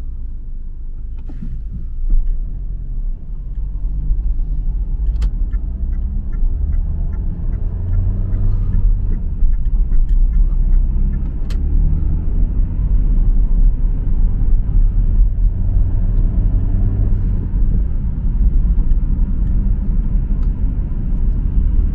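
Car cabin noise while driving: a steady low rumble of engine and tyres on the road that grows louder about two seconds in, with a few sharp clicks.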